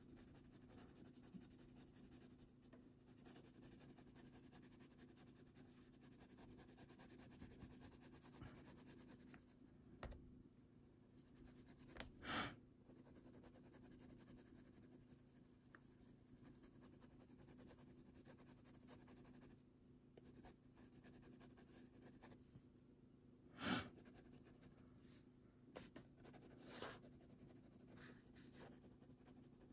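Faint scratching of a Faber-Castell Polychromos colored pencil shading on paper over a low steady hum, with two short sniffs about 12 and 24 seconds in.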